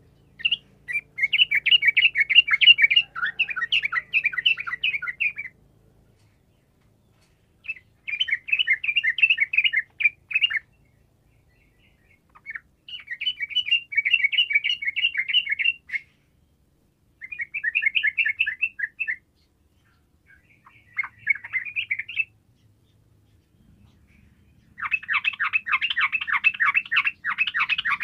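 Yellow-vented bulbul (trucukan) singing in six bouts of rapid chattering notes. Each bout lasts about two to five seconds, with pauses of a second or two between them.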